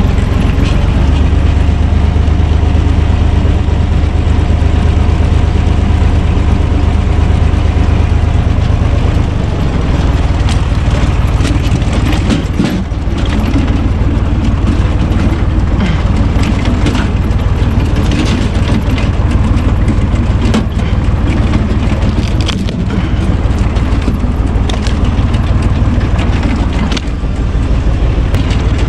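U445 DT tractor's diesel engine running steadily to drive a PTO screw-cone log splitter; about ten seconds in its note changes as the cone takes a log, and from then on firewood cracks and knocks repeatedly as the logs split apart.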